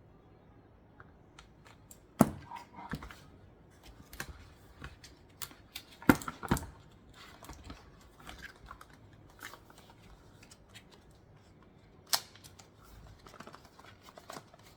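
Cardboard box packaging and paper inserts being handled: scattered light clicks and rustles, with a few sharper knocks about 2, 6 and 12 seconds in.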